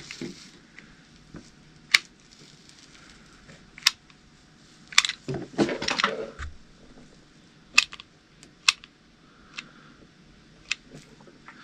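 Scattered sharp plastic clicks and taps from a hot glue gun being worked, with a denser cluster of handling clatter about five to six seconds in.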